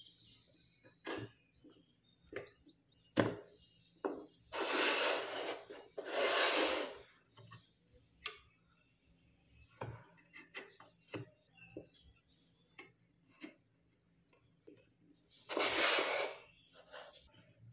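Hands handling a small homemade wooden frame and motor mount: scattered light clicks and knocks of the parts, with three rustling, scraping sounds of about a second each, two together about five seconds in and one near the end.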